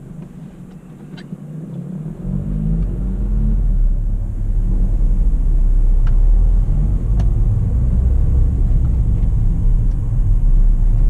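Ford New Fiesta pulling away and accelerating: the engine note rises about two seconds in, then settles into a steady low rumble of engine and road noise.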